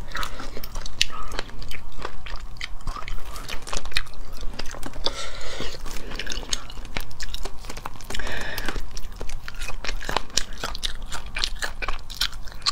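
Close-up eating sounds of cooked crayfish: chewing and biting, mixed with many small sharp clicks and cracks as the shells are broken and peeled by hand. There are two longer, denser stretches about five and eight seconds in.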